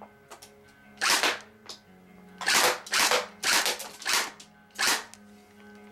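Palco Firepower FP8 (XM8-style) airsoft electric gun firing six short bursts, three of them in quick succession in the middle: the freshly repaired gun cycling without misfiring. Faint background music plays underneath.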